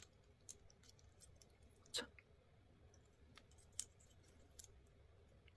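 Faint, sparse clicks of a small plastic Mobility Joint Gundam RX-78-2 figure's joints and parts as it is handled and posed, with two slightly louder clicks about two and four seconds in.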